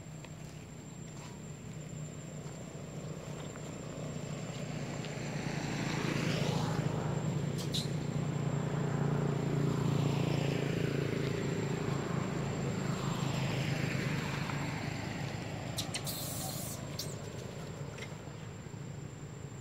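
A motor vehicle passing by: a low engine hum grows louder over several seconds, is loudest around the middle, then fades away. A brief hiss comes near the end.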